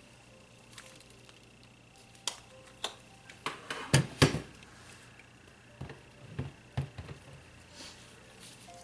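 Irregular light knocks and clacks of a stick blender being handled against plastic containers and a countertop, with the loudest couple of knocks about four seconds in and a few more around six to seven seconds.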